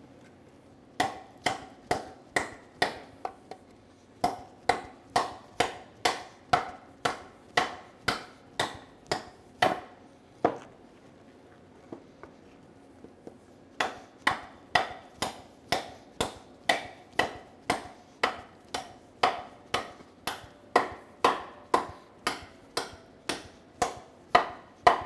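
Combat knife chopping into a wooden 2x4: a steady run of sharp blade-on-wood strikes, about two a second. The strikes pause for about three seconds midway, then resume.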